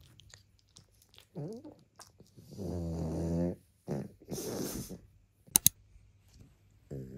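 Pug snoring and grunting in a few noisy, buzzing breaths, the longest about 2.5 s in, with two sharp clicks a little after halfway.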